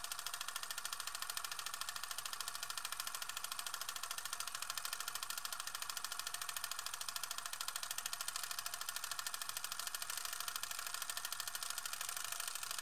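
Film projector sound effect: a rapid, even mechanical clatter of the film running through.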